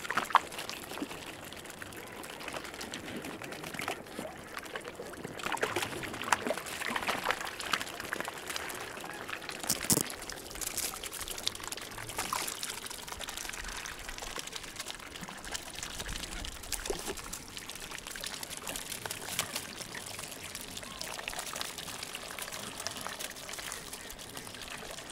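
Mute swans feeding in shallow water at the edge of a river, their bills dabbling and splashing as they pick up grain, a steady run of many small wet clicks and splashes.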